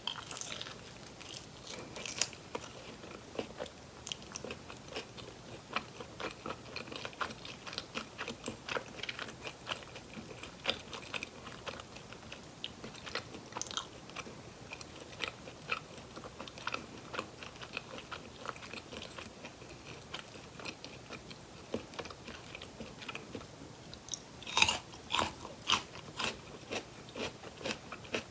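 Close-up chewing and crunching of fried chicken drumsticks, crisp batter cracking between the teeth in many small crunches, with a run of louder, sharper bites near the end.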